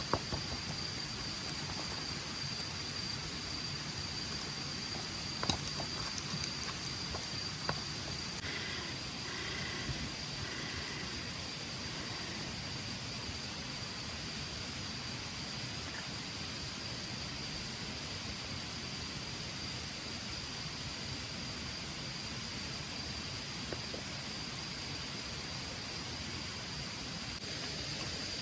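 Late-summer outdoor ambience: a continuous high insect trill over an even hiss. A few sharp clicks come several seconds in, and brief chirps come a little later.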